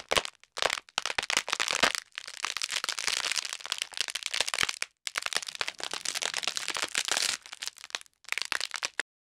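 Bone-cracking sound effect from a Force-choke scene: a dense run of sharp cracks and crunches in several bursts separated by brief pauses, stopping near the end.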